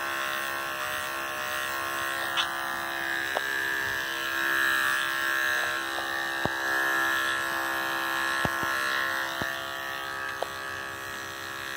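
Andis electric dog clippers running steadily, cutting through a schnauzer's coat where the ears meet the neck. The buzz rises and dips a little as the blade meets the hair, with a few faint ticks.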